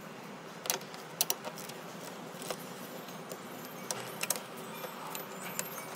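Stanley ratchet socket spanner clicking in short irregular runs of faint ticks as it loosens a battery hold-down bolt.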